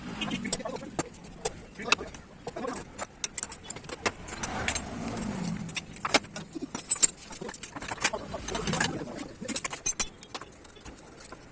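Metal hand tools and motorcycle engine parts clinking and tapping during engine teardown, in irregular sharp clicks and knocks.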